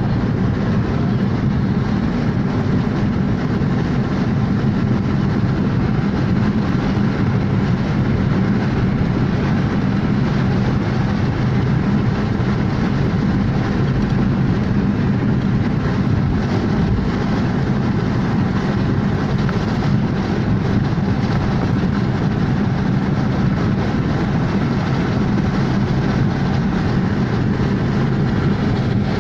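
Steady road and engine noise inside a car cruising on a highway: a low drone from the engine and tyres with a faint hiss above it.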